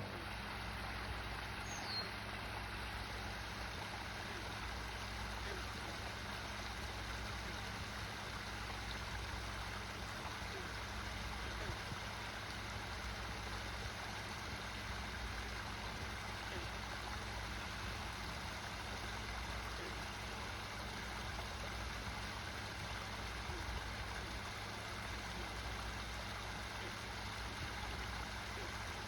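Backyard waterfall splashing steadily, over a low steady hum. A single short, high falling chirp sounds about two seconds in.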